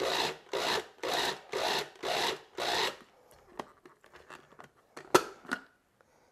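Small electric food processor pulsed in about six short bursts, roughly two a second, its blades churning cooked chestnuts in syrup into a thick, still chunky puree. It stops about three seconds in, followed by a few light clicks and one sharp click as the plastic lid is lifted off.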